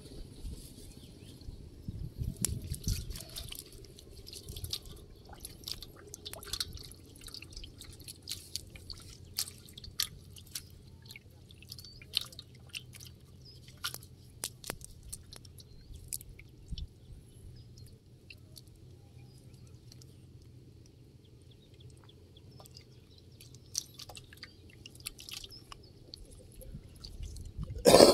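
Close handling noise of a wet nylon fishing net being picked through by hand to free small fish: scattered small clicks and rustles with light drips and splashes of water. A short louder clatter comes right at the end.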